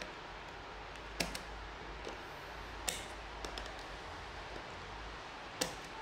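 Needle-nose pliers working at the centre bolt of a Shimano ST-EF41 shifter, giving three sharp metallic clicks a second or two apart with a few lighter ticks in between, over a faint steady hiss.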